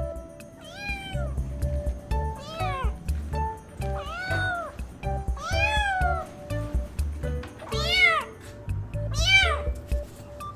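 Young orange tabby kitten meowing six times, each meow high-pitched and rising then falling in pitch.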